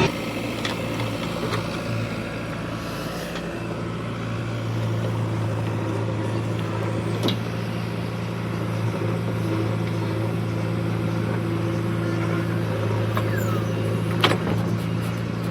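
Diesel engine of a heavy machine running steadily at an even speed, with a couple of sharp clicks or knocks, one about halfway and a louder one near the end.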